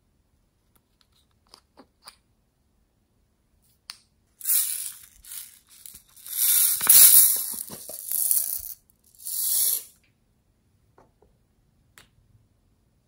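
Small plastic hand-cream containers handled close up: a few light clicks, then about five seconds of loud hissing, crackling noise in three or four surges, like cream or air being squeezed out or a seal being peeled. A couple more soft clicks follow near the end.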